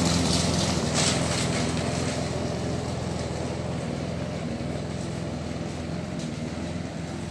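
Gasoline lawn mower engine running steadily, growing gradually fainter.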